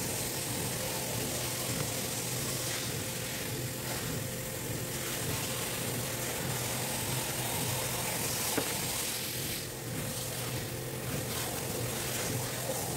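Steady hiss with a low hum, with one faint click about two-thirds of the way through.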